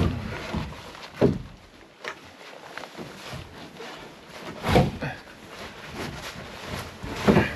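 Three separate dull wooden knocks and thuds, the loudest near the end: a wooden pallet being dragged and set down.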